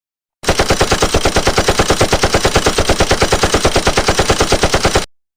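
Machine-gun sound effect: one long burst of automatic fire, about nine shots a second, starting and cutting off abruptly.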